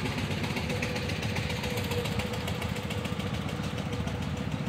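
An engine running steadily, its firing a fast, even beat.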